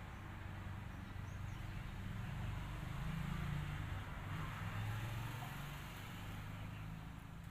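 A low rumbling hum that swells through the middle and then eases off.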